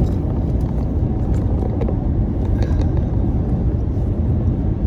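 Steady low road and engine rumble of a car driving on the highway, heard from inside the cabin.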